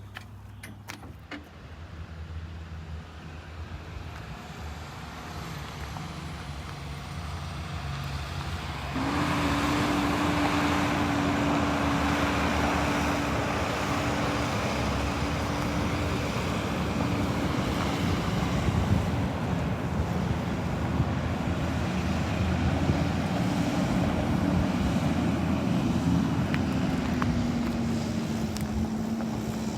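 A machine's motor running. It grows gradually louder, then steps up sharply about nine seconds in to a steady hum with a noisy rush, and its pitch sags slightly near the end.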